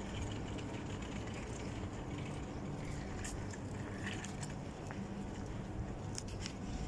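Steady outdoor street background noise, a low rumble with faint traffic in it, broken by a few light clicks.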